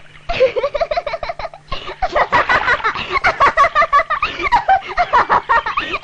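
A girl laughing: a long run of quick repeated laughs that starts a moment in and goes on for several seconds.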